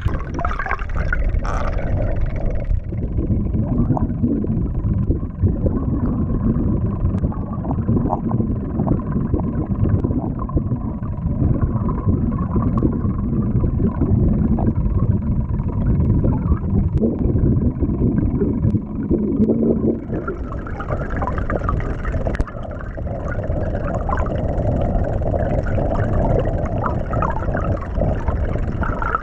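Bladed jig (chatterbait) being retrieved underwater and heard through an underwater camera: a steady low rush of water with rapid small clicks from the vibrating blade.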